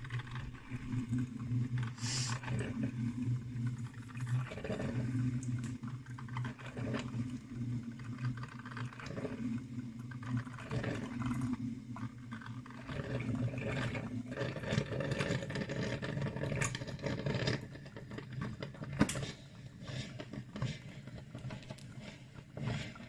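Salter one-cup filter coffee maker brewing: a steady low hum with irregular spluttering and pops as the heated water is forced through the filter. The spluttering grows busier about two-thirds of the way through, then eases off near the end.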